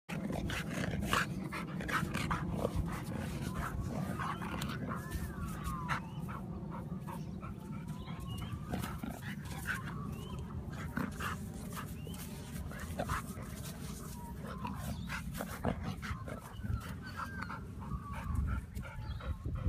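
Golden retriever whining in long rising and falling whines while its paws scrape and scatter dirt as it digs, with many short scratching clicks, over a steady low rumble.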